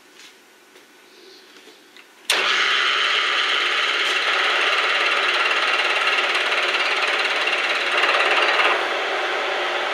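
Bridgeport milling machine under ProtoTrak CNC control, its end mill cutting a hole in phenolic. After a few faint clicks, a loud, steady cutting noise starts suddenly about two seconds in and eases a little near the end.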